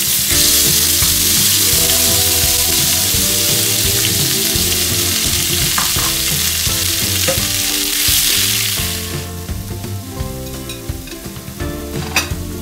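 Chili paste tipped into hot oil in a frying pan, sizzling loudly at once. The sizzle eases after about nine seconds as the paste is stirred with a wooden spatula, with a few knocks near the end.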